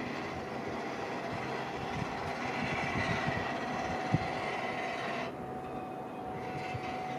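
Boeing 777-300 airliner on final approach, its jet engines heard from a distance as a steady rumble with a faint whine, with wind buffeting the microphone and a single thump about four seconds in.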